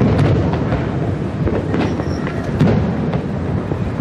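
Fireworks shells bursting overhead in a close run of booms and crackling over a continuous rumble; the loudest bang comes about two and a half seconds in.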